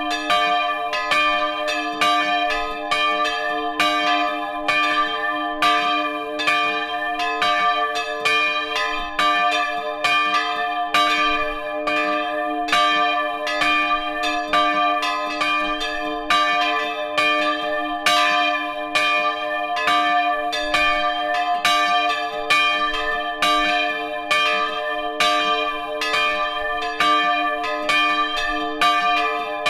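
Bronze church bells swinging and ringing together in a full peal, heard up close in the belfry. Their clapper strokes come every fraction of a second and overlap over a steady hum of ringing tones.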